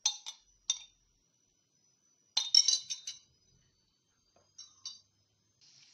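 Light, ringing clinks of kitchenware being handled: a few at the start, a quick run of them around the middle, and two more near the end.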